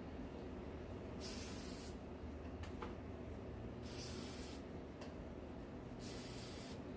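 WD-40 aerosol can spraying three short hissing bursts, each under a second, a couple of seconds apart, one shot into each cup of acrylic paint.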